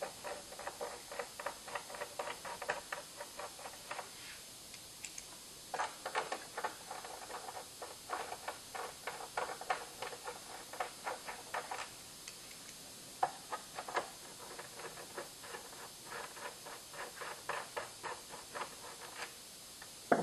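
Hand screwdriver turning M6 machine screws through a metal mounting bracket into the back of a flat-screen TV. It makes runs of rapid small clicks and scrapes in several bursts, with short pauses between the screws.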